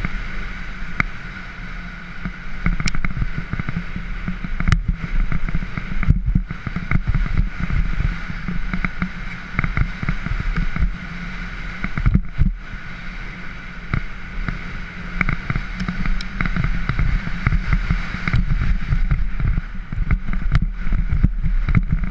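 Wind buffeting a helmet-mounted camera and a mountain bike rattling over a gravel trail, with many short knocks from bumps; the rush drops out briefly twice.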